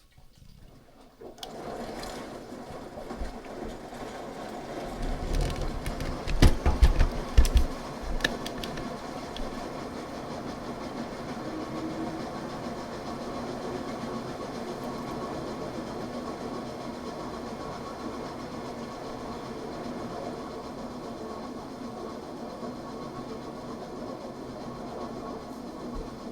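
Front-loading washing machine running its rinse cycle, the drum turning with a steady mechanical hum that starts about a second and a half in. A run of loud low thumps comes about five to eight seconds in.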